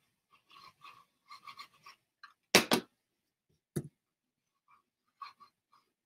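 Handling noises from someone working a computer at a desk: small scattered clicks and scraping, then a loud double knock about two and a half seconds in, a single knock about a second later, and a few faint ticks near the end.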